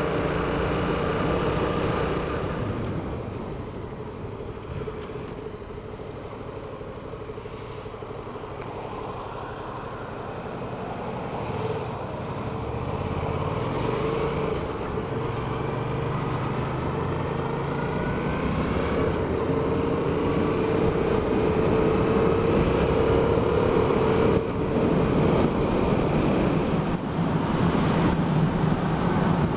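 Yamaha XSR700's parallel-twin engine under way, easing off in the first few seconds and running quieter for a stretch. From about halfway its pitch climbs as it accelerates, and it stays louder to the end, with two brief dips near the end.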